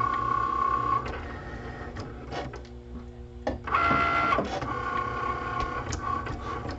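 Cricut Maker cutting machine cutting a printed sticker sheet: its carriage motors whine in steady high tones that stop and start as the blade moves, with a short quieter, lower-pitched stretch about halfway.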